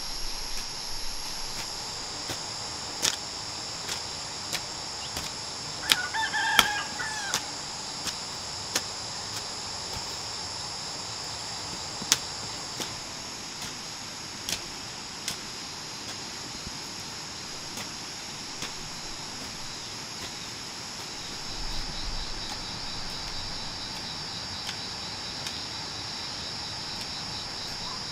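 A steady chorus of insects shrilling. A rooster crows once about six seconds in. Through the first half come irregular sharp knocks of a hoe striking the dug soil.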